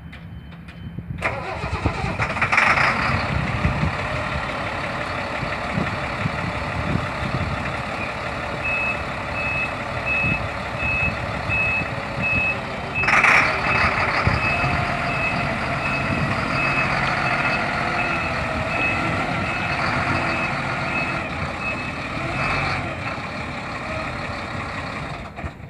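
Diesel engine of a 1999 Sterling boom truck running, with a long row of short, evenly spaced high beeps through the middle.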